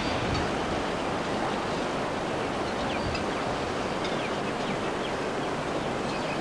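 Sydney single-deck electric suburban train (Red Rattler) running slowly round curved track: a steady, even rolling noise with no clear beat, with a few faint short high squeaks.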